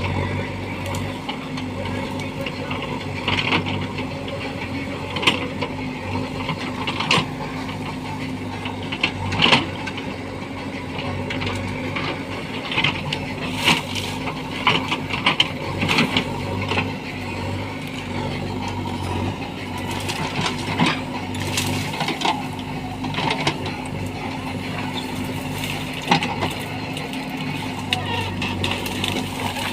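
JCB 3DX backhoe loader's diesel engine running steadily under work, with frequent short sharp knocks and cracks scattered through it.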